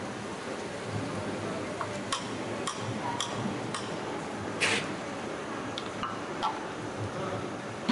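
Okra deep-frying in a large iron kadai: a steady sizzle of hot oil, with a metal strainer clicking against the pan several times about half a second apart and scraping louder a little past halfway.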